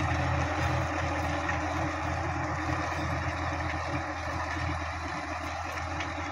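Sonalika DI-50 RX tractor's diesel engine running steadily as it pulls a rotary tiller through the field. The drone fades slowly as the tractor moves away.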